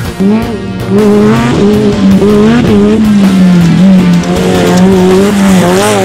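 Off-road race buggy's engine running hard, its pitch rising and falling, mixed with a music soundtrack.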